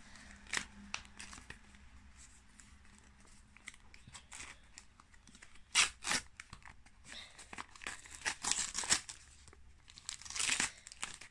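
A small plastic packet being torn open and crinkled by hand, in irregular crackles and rustles that come in louder spurts about six seconds in, again a couple of seconds later and near the end.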